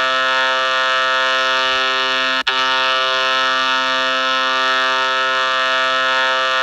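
A loud, steady buzzing tone with many overtones, held at one pitch without rising or falling, that drops out for an instant with a click about two and a half seconds in.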